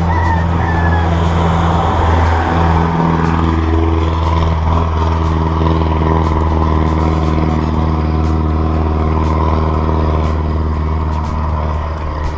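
Vehicle engine running steadily at an almost constant pitch, with a slight dip about two to three seconds in, and wind noise rushing over the microphone.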